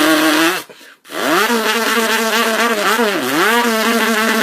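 A man's vocal imitation of a compact demolition-derby car engine: a buzzing held note that cuts off just under a second in, then rises into a long steady drone, dipping briefly in pitch and climbing back about three seconds in.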